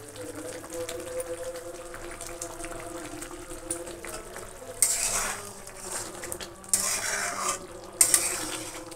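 Steel spatula stirring and scraping in a kadai of simmering palak gravy as paneer cubes are folded in: three louder scrapes about five, seven and eight seconds in, over a steady hum.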